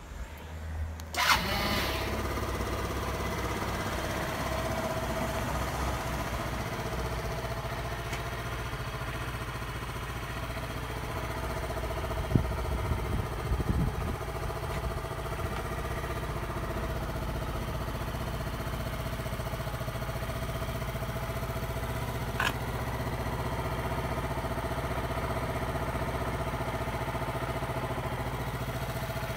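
Yamaha Vity 125 scooter's four-stroke engine starting about a second in, then idling steadily. A few brief knocks come partway through.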